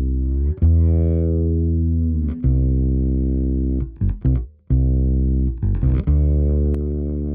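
Fretless bass guitar playing a slow line of long sustained notes with slides between some of them, a few short notes about four seconds in, heard through a Drawmer 1973 three-band FET multiband compressor.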